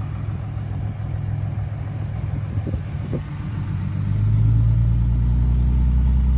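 Pickup truck engine running at idle, heard from inside the cab. About four seconds in it grows louder and deeper as the truck drives off, and it then runs steadily.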